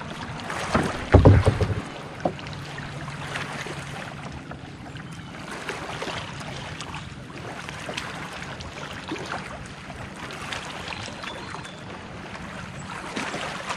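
Small waves lapping against a plastic kayak's hull, with wind on the microphone; a couple of dull thumps about a second in.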